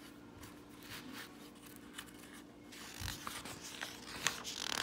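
A page of a large paper picture book being turned: paper rustling and sliding, busiest in the last two seconds, with a low thump about three seconds in.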